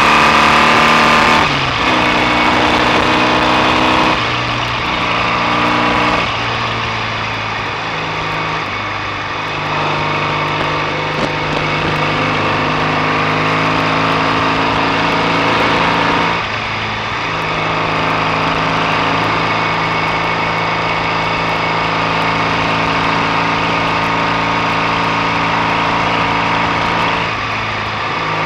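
BSA A65 650 cc parallel-twin engine running under way on the road. Its note steps down and climbs again several times as the revs drop and pick up.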